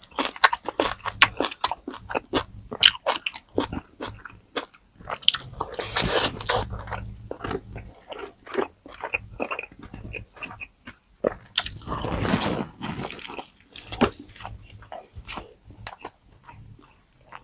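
Close-miked eating of crispy pata, deep-fried pork leg: sharp crunching bites of the crackling skin and chewing, with two longer, denser stretches of crunching, one about five seconds in and one about eleven seconds in.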